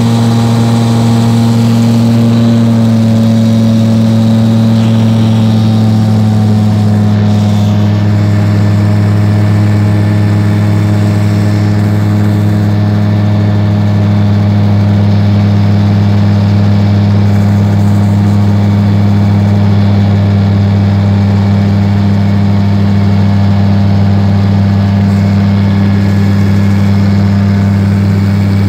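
Gyrocopter's engine and pusher propeller heard from inside the cockpit: a loud, steady low drone whose pitch sinks slightly a few seconds in, then holds level.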